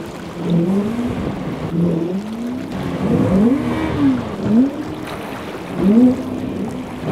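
Johnson two-stroke outboard motor revving up and falling back again and again, the throttle pumped about once a second as the speedboat bunny-hops.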